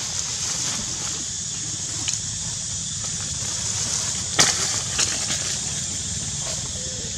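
Steady outdoor ambience with a high hiss and a low rumble, broken by a few sharp crackles of dry fallen leaves stirred by macaques, the loudest about four and a half seconds in.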